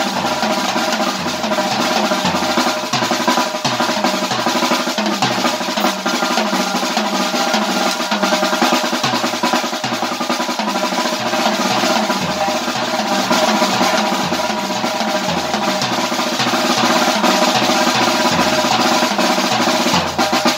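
Acoustic drum kit played with sticks: a continuous, busy groove of snare, cymbals and toms with bass drum. Underneath runs a backing track with a moving bass line.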